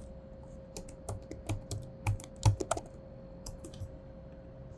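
Typing on a computer keyboard: a quick run of about a dozen keystrokes over two seconds, then a few fainter clicks about a second later.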